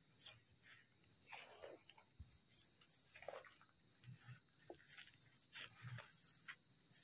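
Faint, steady high-pitched drone of insects in the surrounding vegetation, two unbroken tones, with a few soft bumps and rustles.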